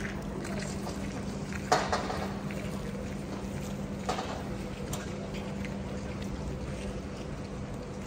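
Roof construction work: a steady machine hum, with a sharp knock about two seconds in and a lighter knock about four seconds in.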